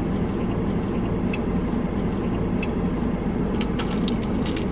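Steady low hum inside a car cabin, with a few faint clicks near the end.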